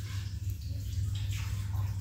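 Lego Technic plastic pieces being handled and shuffled in a few short rustling bursts, over a steady low hum.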